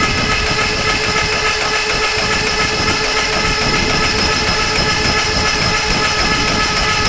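Lycoming O-320 aircraft engine being spun by its SkyTech electric starter with spark plugs out, so there is no compression and no firing: a loud, steady starter whine at one even pitch with a mechanical drone underneath. The cranking drives the oil pump to prime the oil system and bring up oil pressure.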